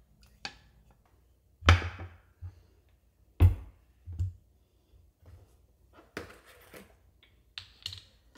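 A few irregular thunks and taps of kitchen work on a cutting board. The two heaviest come about two and three and a half seconds in, and lighter clicks and taps follow near the end.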